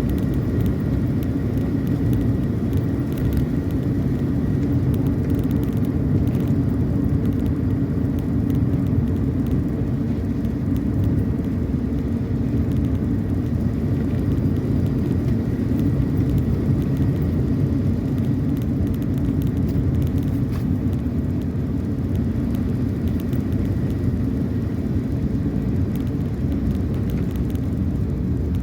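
A car travelling on the road, with a steady low rumble of engine and tyres that holds even throughout.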